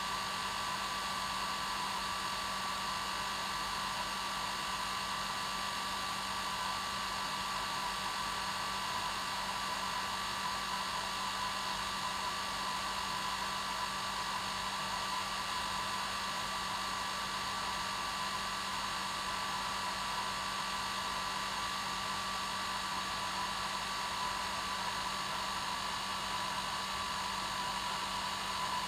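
Hair dryer running steadily on its normal setting: a constant rush of air over a steady motor hum.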